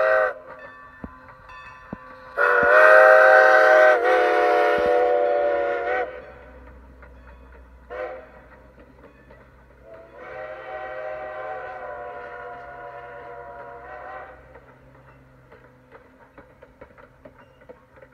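Steam locomotive's multi-note chime whistle sounding long, long, short, long, the grade-crossing warning: one blast cuts off just after the start, then a loud long blast, a short toot and a quieter long blast. Faint clatter of the passenger coaches' wheels follows as the train rolls by.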